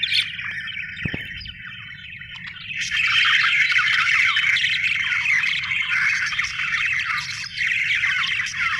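Budgerigars chattering: a dense, busy stream of chirps and calls that gets louder about three seconds in.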